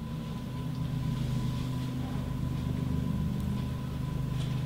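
A steady low machine hum with a thin, faint high whine over it, holding even throughout.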